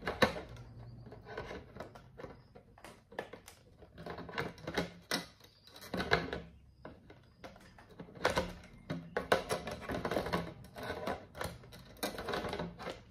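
Irregular clicks, taps and knocks of hard plastic parts of a Xiaomi Mi Smart Standing Fan 2 Lite being handled and pressed together as the rear grille is fitted onto the motor housing.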